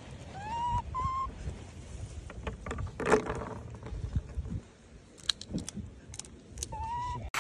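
Macaque coo calls: short rising whistle-like calls, two near the start and one near the end. In between come scattered sharp cracks and clicks as peanuts are bitten open, the loudest about three seconds in.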